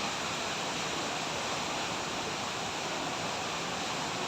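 Steady rush of falling water from the Rain Vortex, the indoor waterfall at Jewel Changi Airport.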